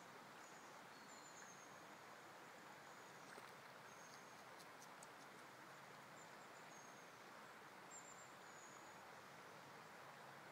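Near silence: the faint steady rush of a shallow river running over stones, with brief high chirps now and then and a few faint clicks about four to five seconds in.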